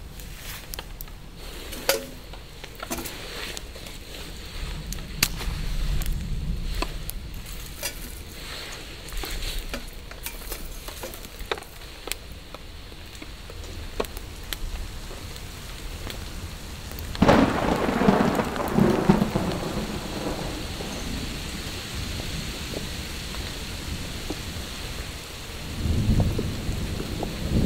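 Steady rain during a thunderstorm, with many single drops striking close by. About seventeen seconds in, a sudden clap of thunder rumbles for a few seconds, and a second low rumble builds near the end.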